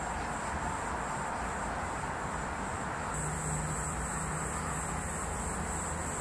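Steady ambient background noise with a high, even trill that gets louder about three seconds in, joined at that point by a low hum.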